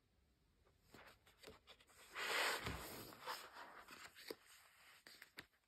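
A picture book being closed and turned over in the hands: a rustling swish of the pages and card cover about two seconds in, with light taps and clicks of the cover before and after it.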